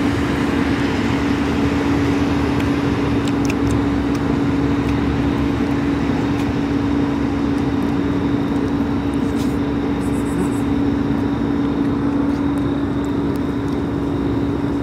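Steady drone of an idling vehicle engine, one constant low hum that does not change, with a few faint clicks over it.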